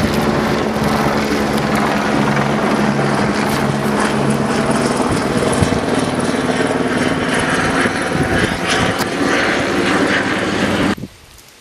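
Aircraft engine drone, steady and loud, with a pulsing low hum, that cuts off abruptly near the end.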